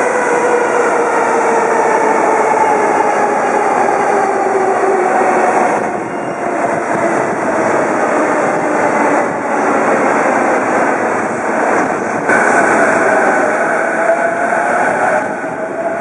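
JR East E233-series electric train pulling in, its inverter-driven traction motors whining in tones that fall in pitch over the first several seconds as it brakes, over steady wheel and running noise.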